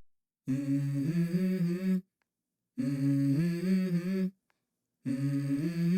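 Background music: a wordless hummed vocal melody in three short phrases, with brief silences between them.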